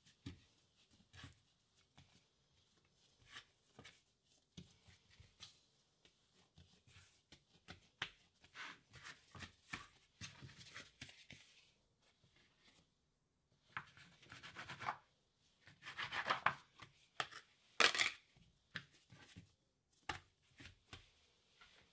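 Hands working bread dough on a wooden cutting board: dividing, pressing and shaping the dough, with scattered soft taps and knocks on the board and rubbing of hands on dough. The handling gets busier and louder in the later part.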